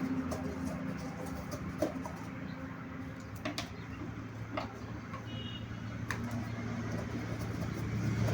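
A steady low engine hum, with a few sharp clicks and a brief high chirp midway.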